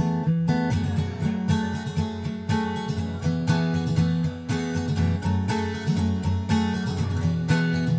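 Background music: an acoustic guitar arrangement playing with a steady rhythm.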